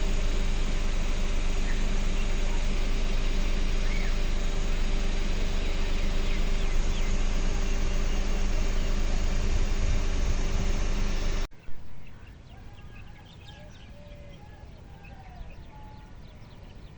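An engine running loudly and steadily with a constant hum, cutting off suddenly about two-thirds of the way through. After that, quieter outdoor sound with short bird calls.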